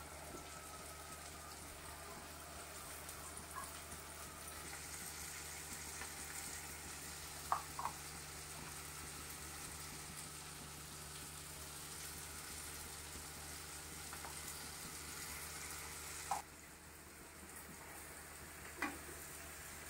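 Onions, green chillies and boiled chana dal frying in oil in a steel kadai, a faint steady sizzle. A couple of light clicks come about halfway through, and near the end the sizzle drops away sharply, followed by a single clack.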